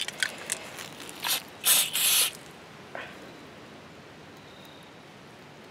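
Aerosol can of PFC Earth Scent gear lubricant spraying onto a knife blade: a short hissing puff, then a longer hiss of about half a second.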